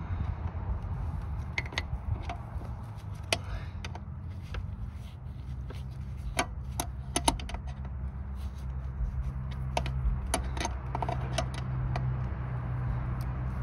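Wrench clicking on the metal fitting of a car's clutch hard line as it is tightened, a scatter of small sharp clicks at irregular intervals over a steady low hum.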